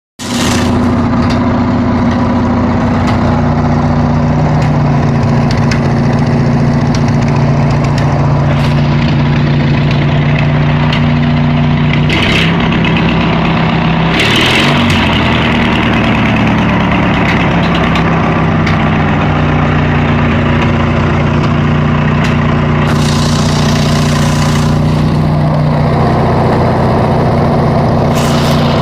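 Riding lawn mower engine running steadily. Its speed dips and picks back up about halfway through and shifts again near the end.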